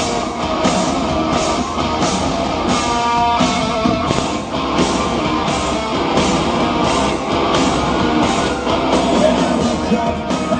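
Live rock band playing loud on stage, with drum hits landing about every three-quarters of a second.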